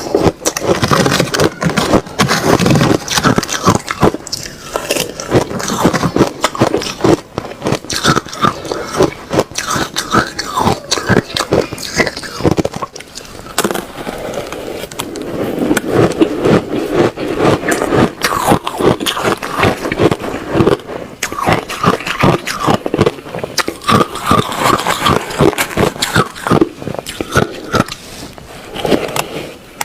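Ice being crunched and chewed in the mouth, with many sharp cracks in quick succession.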